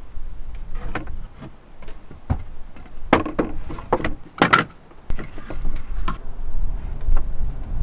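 Plywood panels of a car-camping bed-levelling platform being handled and lifted out: a series of wooden knocks and scrapes, loudest in a cluster about three to four and a half seconds in. A low rumble comes in during the second half.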